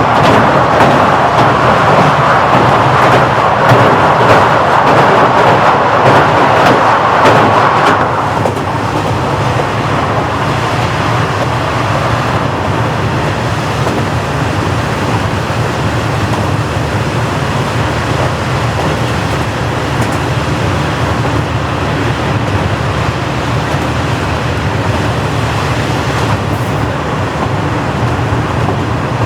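KiHa 40-series diesel railcar running, heard from inside the car: a steady rushing noise over a low hum. The louder rushing eases off about eight seconds in, leaving a quieter, steady running noise.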